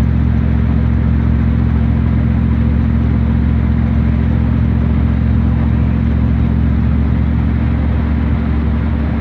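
Old pickup truck heard from inside its cab while driving: a loud, steady low drone of engine and road noise.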